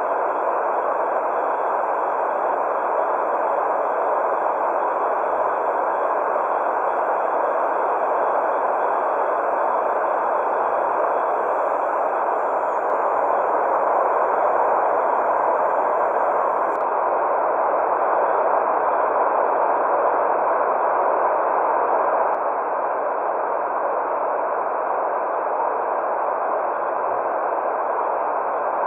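Steady white noise for a baby's sleep, filtered to a soft hiss centred in the middle range with little bass or treble. It holds an even level, with faint thin high tones running under it.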